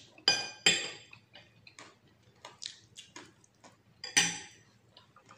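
Metal spoon and fork clinking and scraping against a plate while scooping rice: two sharp, ringing clinks near the start, light ticks, then another ringing clink about four seconds in.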